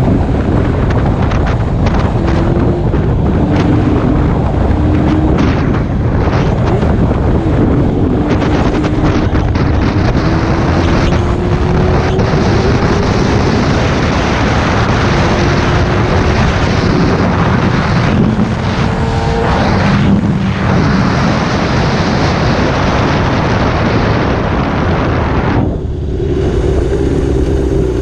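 Sport motorcycle ridden at highway speed: heavy wind noise on the microphone over the engine's drone, whose pitch climbs slowly and drops back a couple of times. Near the end the wind noise falls away sharply as the bike slows.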